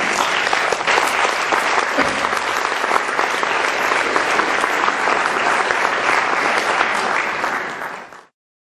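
Audience applause, many hands clapping steadily, fading out and cutting off about eight seconds in.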